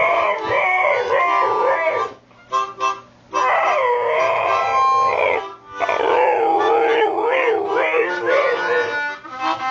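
Husky howling along with harmonica music, in three long wavering phrases separated by short breaks.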